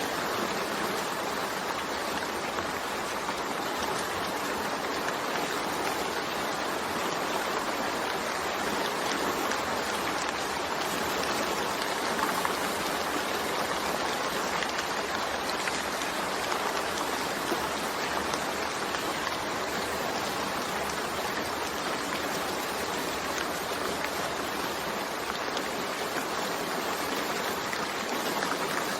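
Steady rain: a dense, even patter of drops that does not rise or fall, with no thunder.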